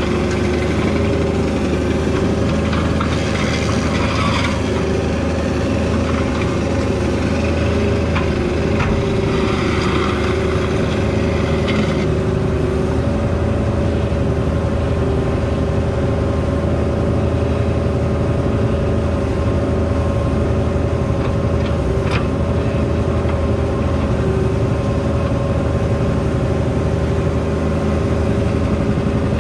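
Diesel engine of a mini excavator running steadily, with two stretches of scraping and rattling in the first half and a single sharp click later on.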